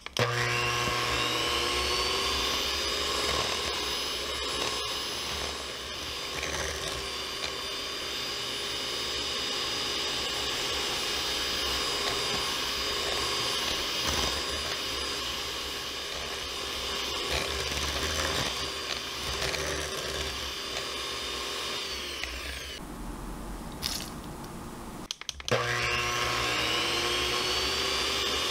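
Electric hand mixer whipping butter, sugar and egg at high speed: the motor spins up with a rising whine and runs steadily, winds down about 22 seconds in, then starts up again with another rising whine a few seconds later.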